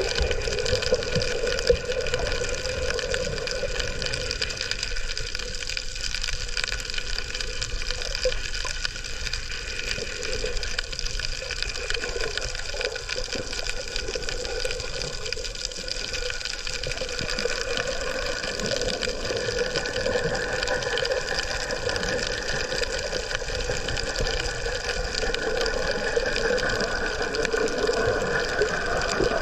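Underwater sound picked up by a submerged camera: a steady muffled water rush with a constant hum running through it.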